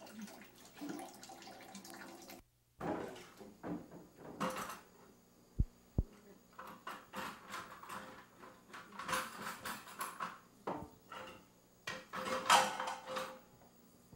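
Dishes and cutlery knocking and clinking at a kitchen sink as they are washed up by hand, with two dull thumps a little before the middle.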